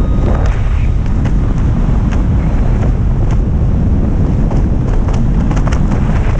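Airflow buffeting the camera microphone during a tandem parachute descent under canopy: a loud, steady wind rumble with scattered sharp ticks.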